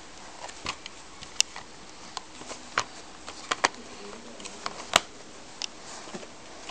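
Plastic DVD case being handled and turned over in the hands, giving irregular light clicks and taps with a sharper click about five seconds in.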